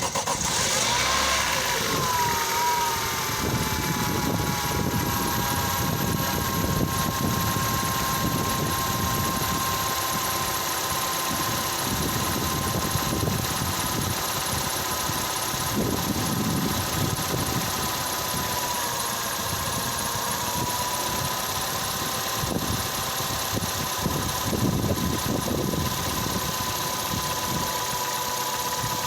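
Nissan Terrano's 2.0 F4R petrol four-cylinder engine idling just after a cold start, with a steady high whistle over the engine noise. The whistle glides down in pitch over the first few seconds, then holds. It is the cold-engine whistle that dies away after about a minute of running.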